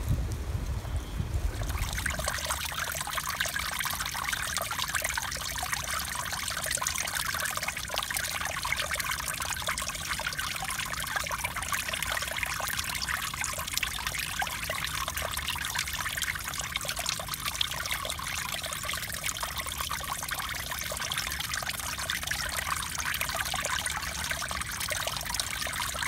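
Small woodland stream trickling steadily over leaves and mossy logs. Wind rumbles on the microphone for the first couple of seconds.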